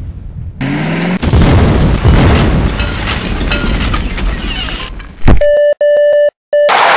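Storm sound effect of heavy rain and rumbling thunder. About five seconds in, a click, then a steady electronic beep sounding three times with short breaks between, from the storm-chasers' instrument.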